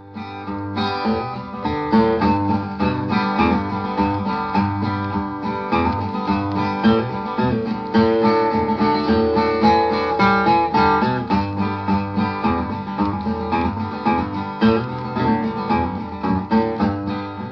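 Acoustic guitar music, many quickly plucked notes, fading in over the first second.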